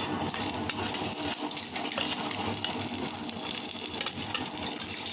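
Whole spices (cinnamon, cloves and cardamom) sizzling and crackling in hot oil in a kadai, spluttering as they fry.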